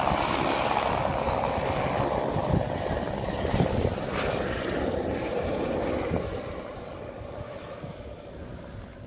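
Helicopter flying away after take-off, loud at first and fading from about six seconds in as it draws off into the distance.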